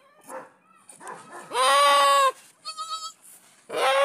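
Goat bleating: two long, loud calls, with a few short, higher-pitched wavering cries between them.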